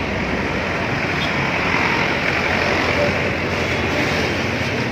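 A road vehicle passing close by: a steady rushing noise that swells to its loudest about halfway through and then eases off a little.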